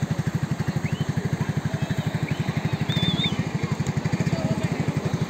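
Quad bike engine idling with a steady, fast, even putter of about ten to twelve beats a second, with distant voices faintly behind it.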